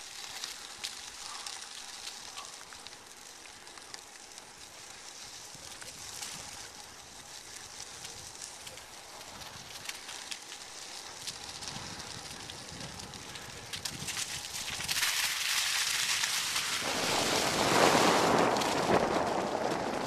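Steady crackle and rustle of tyres rolling over dry fallen leaves and grit on a trail, with many small ticks. It grows louder and denser about three-quarters of the way in.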